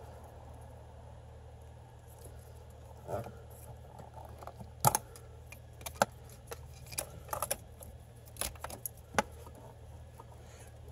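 Plastic wiring-harness plug connectors being handled: scattered clicks and light rattles as locking tabs are pressed and plugs worked apart, over a steady low hum.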